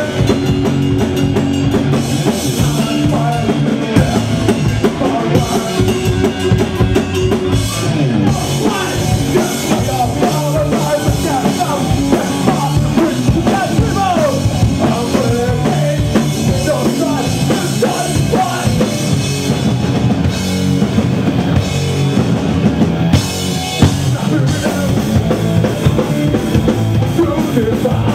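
Rock band playing live, with a drum kit prominent under the other instruments.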